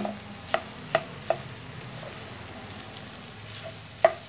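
Plastic spatula stir-frying rice and diced spam in a nonstick frying pan over a faint sizzle, knocking against the pan four times in the first second and a half and once more near the end.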